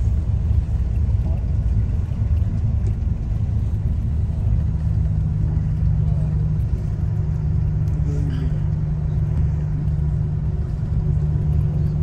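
Tour bus running along a road, heard from inside the passenger cabin: a steady low engine and road rumble, with a constant engine hum settling in about three seconds in.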